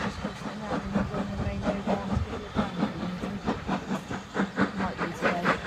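Southern Railway U class steam locomotive 31806 with its train, hissing steam over a quick, uneven run of clacks and knocks.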